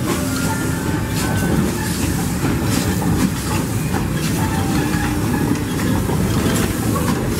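Small wood-fired narrow-gauge Borsig steam locomotive running slowly past close by, pulling a train of passenger cars. Steam hiss mixes with the steady clatter of wheels and running gear on the rails.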